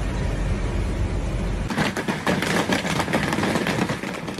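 A steady low rumble and hiss, then about two seconds in a dense, irregular clatter of many small hits as heavy hail pelts the ground.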